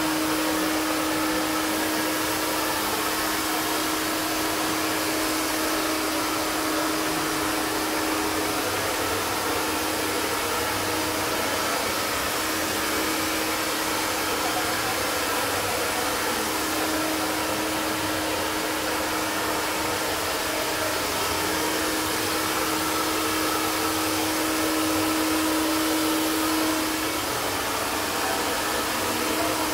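Handheld iTeraCare terahertz health blower running steadily, a hair-dryer-like fan rush with a steady hum that falters briefly near the end.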